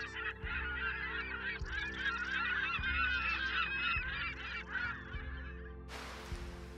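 A large flock of birds calling over one another, with a low steady drone and a soft low thud about once a second underneath. Near the end the calls give way to a burst of hiss.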